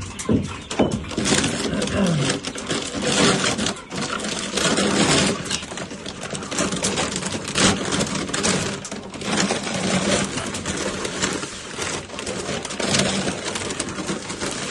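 Dry chicken feed pellets rattling in a feeder as it is filled: a dense, continuous clatter of many small hard pellets. A few short bird calls come near the start.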